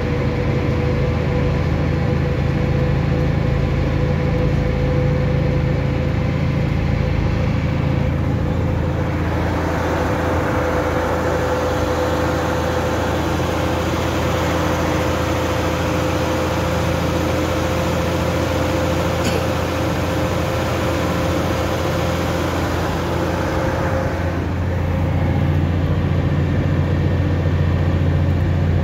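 Unimog truck under way on a dirt track: engine and drivetrain drone with a steady whine running over it. From about nine seconds in to about twenty-four seconds the sound turns rougher and more rushing, then the steady cab drone returns.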